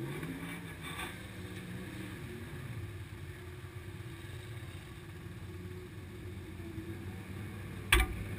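Engines idling steadily, one drifting down in pitch a second or two in, with a single sharp thump near the end.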